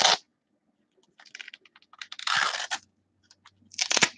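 A pair of batting gloves being pulled apart and handled, giving three short bursts of crackling and rustling: one at the start, a longer one about two seconds in, and one near the end.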